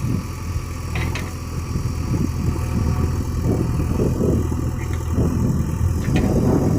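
JCB 3DX backhoe loader's diesel engine running steadily, with a couple of short knocks, about a second in and near the end.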